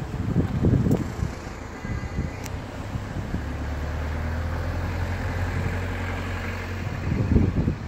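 A motor vehicle's engine running with a steady low hum for a few seconds in the middle, over gusts of wind buffeting the microphone.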